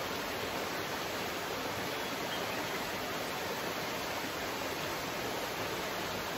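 Steady rushing of flowing water from a stream or river, an even, unbroken noise throughout.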